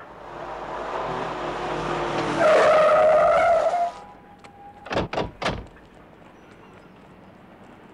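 A car approaching, then its tyres squealing loudly for about a second and a half as it brakes hard, cutting off suddenly. Three quick thumps follow about a second later.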